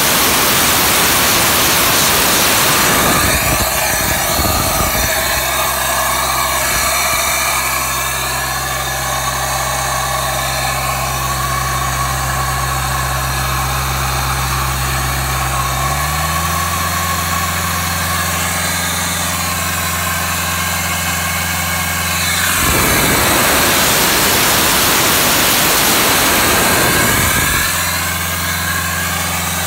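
Engine of a trailer-mounted machine running steadily, its speed stepping up a little about halfway through. A loud rushing noise covers it twice, near the start and about three quarters through.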